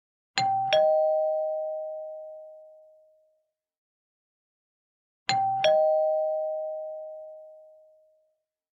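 Classic two-tone doorbell chime ringing ding-dong twice: a high note struck, then a lower note, each ringing out and fading over a few seconds.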